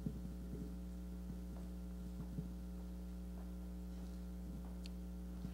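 Steady electrical mains hum in the sound system, with a few faint, irregular knocks.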